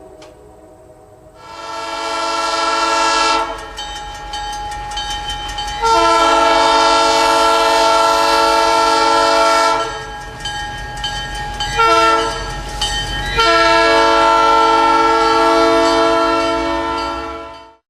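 Five-chime diesel locomotive air horn sounding a series of long blasts, each a steady chord of several notes, with weaker stretches between. The last blast, about four seconds long, cuts off abruptly near the end.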